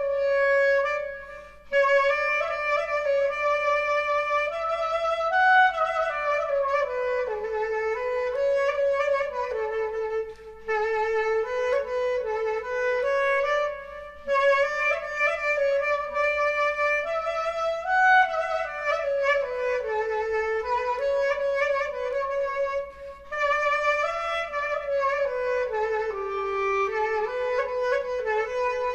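Music: a slow, wavering solo melody on a wind instrument, played in long phrases with short pauses between them. A faint steady low hum sits beneath it.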